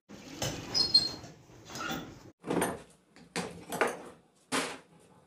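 Metal parts of a hand-worked sewing machine head being handled and adjusted: a string of short scrapes and clicks, with a brief high squeak about a second in.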